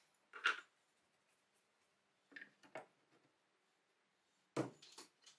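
A few light clicks and knocks as the cast-iron parts of an antique meat chopper are handled on a wooden workbench: one about half a second in, two close together near the middle, and the loudest knocks near the end.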